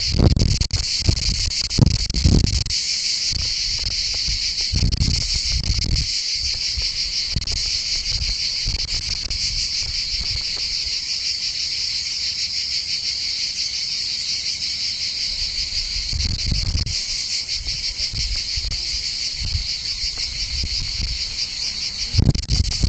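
Steady chorus of insects, a dense high-pitched buzzing trill that keeps on without a break. A few short low rumbles come and go beneath it, near the start, a third of the way in, and again near the end.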